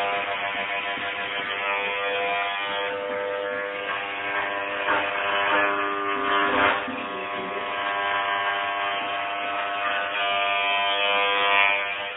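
Corded electric hair clippers buzzing steadily as they cut hair close to the scalp, the hum shifting briefly about halfway through.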